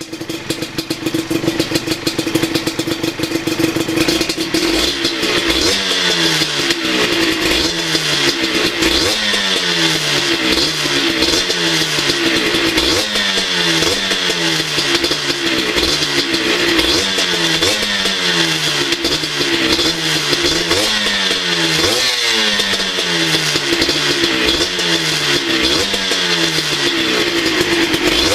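Honda CRM125 two-stroke single-cylinder engine through a DEP exhaust, running steadily for a few seconds, then revved over and over in short throttle blips about every second and a half, each rising and dropping back.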